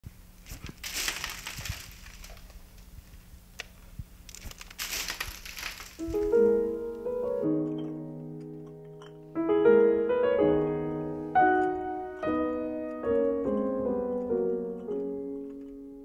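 Solo piano music playing slow notes that ring and fade, starting about six seconds in. Before it, two stretches of rustling noise over a low steady hum.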